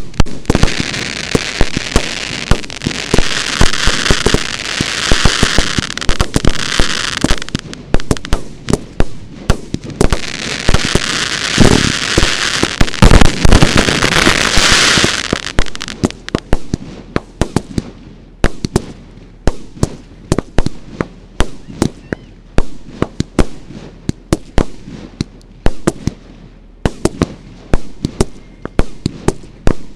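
Fireworks display fired at close range: rapid bangs of shells launching and bursting, with two long stretches of dense hissing over the bangs in the first half, then sparser single bangs from about halfway on.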